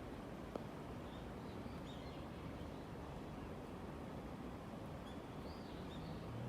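Small birds chirping faintly in short high calls, a few around two seconds in and again near the end, over a steady low background rumble. A single brief click about half a second in.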